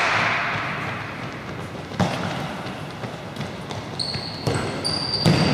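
A futsal ball being kicked and bouncing on a sports hall floor: a sharp knock about two seconds in and several more near the end, with short high squeaks of trainers on the court near the end.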